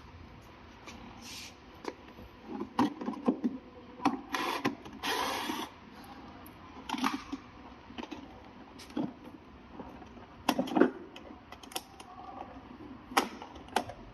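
Irregular clicks, taps and short scraping sounds of small hard parts being handled, with brief gaps between them.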